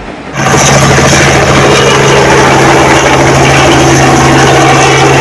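Light helicopter flying low, its rotor and engine loud and steady with a deep constant hum; the sound starts abruptly about a third of a second in.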